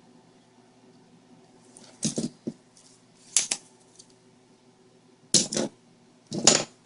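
Spring-loaded solder sucker (desoldering pump) clicking as it is cocked and fired to pull molten solder off motherboard pin joints: four sharp snaps spread over a few seconds, with a faint steady hum underneath.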